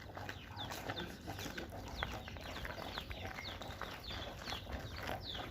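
Many chicks peeping, a steady run of short, overlapping falling chirps, over a low steady hum.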